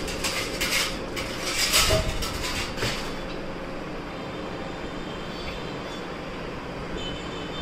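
Stainless steel plates clinking and rattling as one is pulled from a kitchen drawer basket, a string of sharp clinks with a louder knock about two seconds in. After that comes a steady background hiss.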